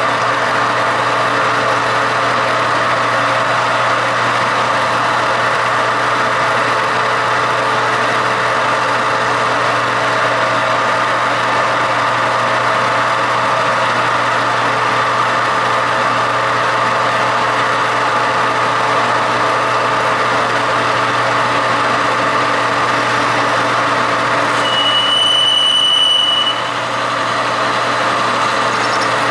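Metal lathe running steadily under power during a boring-bar pass, with a steady motor hum and gear and spindle noise. A high, thin ringing tone sounds for about two seconds near the end.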